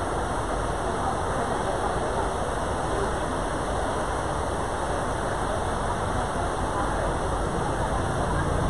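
Steady noise of a large, busy hall, with a faint murmur of distant voices.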